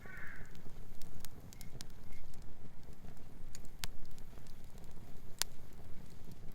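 Wood campfire crackling, with sharp irregular pops over a low rumble. A brief high chirp sounds right at the start.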